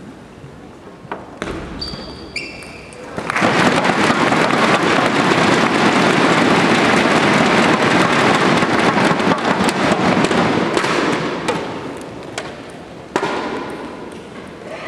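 A table tennis rally, with a few sharp clicks of the ball off the bats and table and a couple of short squeaks. The home crowd then breaks into loud cheering with clattering inflatable noise sticks, which lasts about eight seconds before dying down. Near the end comes a single ball bounce.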